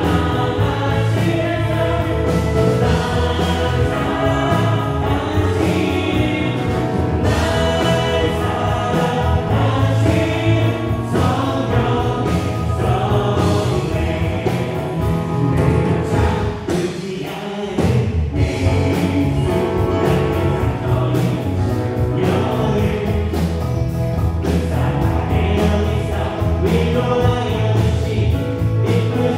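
Live Christian worship band playing a praise song on drums, electric guitar, bass guitar and keyboards, with a group of voices singing. The bass and drums drop away briefly about seventeen seconds in, then come back.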